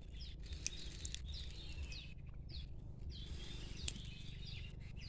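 Wild forest birds calling: many short, high notes that slide downward, repeated several times a second, over a steady low rumble, with a couple of sharp clicks.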